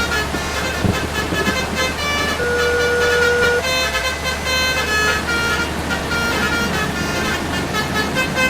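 Bus 'telolet' basuri multi-tone horns playing a quick run of short melodic notes, with one note held for about a second near the middle, over a steady low engine rumble.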